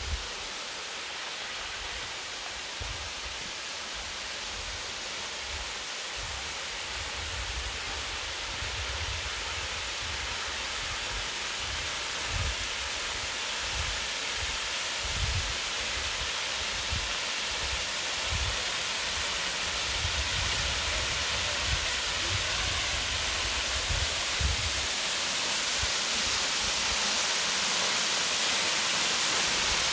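Steady rushing of Cascade Falls' water, a hiss that grows gradually louder, with irregular low thumps underneath.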